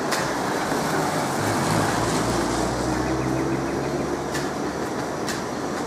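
Street traffic noise, with a vehicle's engine hum swelling as it passes about two to four seconds in, and a couple of sharp clicks near the end.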